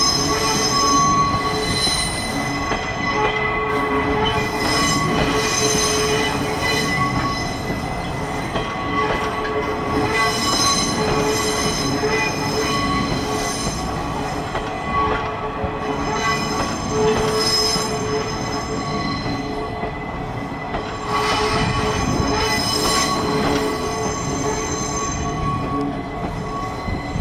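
Wheels of new Chiba New Town Railway 9200-series passenger cars, towed unpowered by a diesel locomotive, rolling slowly past on the rails. A steady rumble runs throughout, with high steady squeals that come and go as the cars pass.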